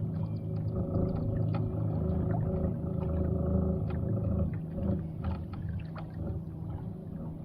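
Small electric trolling motor on a homemade jon boat running steadily under load, a constant pitched hum pushing the boat with a kayak alongside, with water and hull noise under it.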